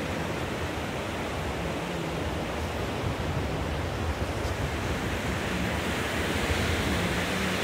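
Waves breaking on a sandy beach, a steady rush of surf that grows a little louder in the last few seconds, with wind buffeting the microphone.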